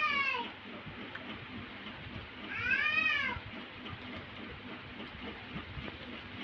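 A cat meowing twice, each a drawn-out call that rises and then falls in pitch: one right at the start and one about two and a half seconds in.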